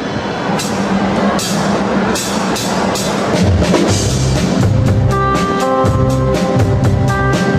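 Live rock band led by a drum kit: steady drum and cymbal strokes keep the beat. About five seconds in the strokes come quicker and held chords from the rest of the band come in.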